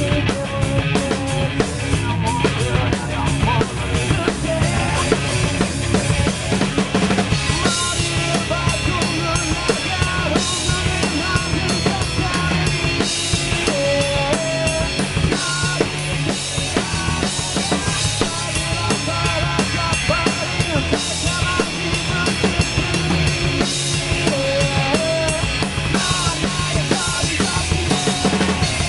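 A rock band playing a song live in a rehearsal room: a drum kit with bass drum, snare and cymbals close to the microphone, over electric bass and guitar.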